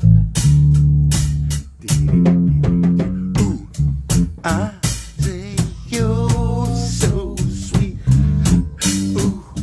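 Five-string Fender Jazz-style electric bass playing a funk bass line, with a drum kit keeping time with kick and cymbal hits.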